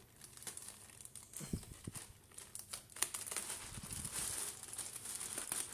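Plastic courier mailer bag crinkling and rustling as it is cut open with small scissors, with a couple of dull bumps of handling about one and a half and four seconds in.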